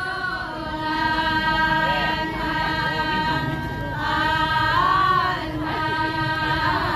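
Pa'katia dancers, a group of Toraja women, singing the pa'katia chant of the rambu solo' funeral rite together, unaccompanied, in long held notes that slide to a new pitch every second or two.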